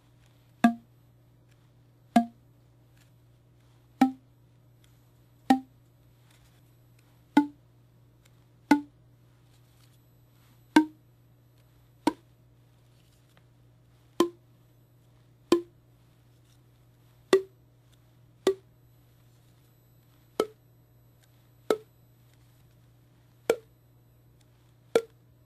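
Open ends of cardboard paper tubes slapped with the palm, twice on each tube from longest to shortest: sixteen hollow pops whose pitch steps up as the tubes get shorter.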